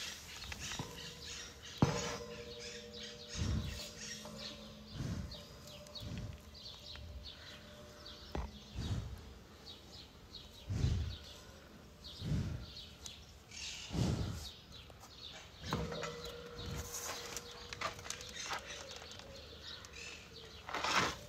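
White rhinoceros grazing right at the microphone, with a low, dull puff of breath about every second and a half, while small birds chirp.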